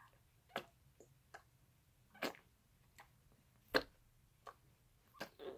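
Quiet, scattered light clicks and taps, about nine at uneven spacing, the loudest about two-thirds of the way through.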